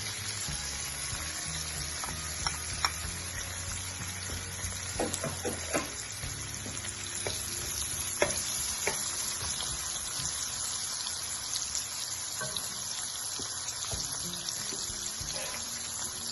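Diced onion frying and sizzling in melted butter in a pot, with scattered sharp clicks of a utensil stirring against the pot.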